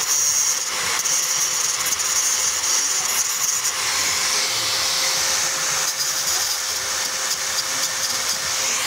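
Angle grinder running steadily with a constant whine, its disc grinding the protruding thread inserts down flush with the face of a motorcycle cylinder head.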